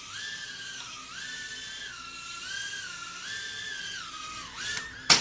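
Eachine E010 micro quadcopter in flight, its motors and propellers giving a high whine that steps up and down in pitch with the throttle. A sharp knock comes near the end.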